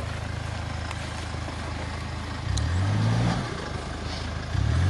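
Hyundai Terracan SUV's engine running steadily, revved up twice, about two and a half seconds in and again near the end, as the off-roader strains to climb out of a ditch where its front wheel is caught.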